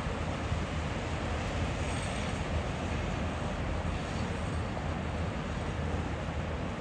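Steady low rumble and hiss of distant road traffic, unbroken and without any distinct single vehicle.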